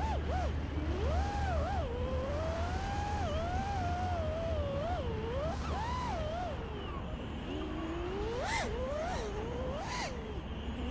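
FPV quadcopter's brushless motors whining, the pitch swooping up and down constantly as the throttle changes, over a steady low rumble of wind and vibration on the onboard microphone. There are a couple of brief whooshes near the end.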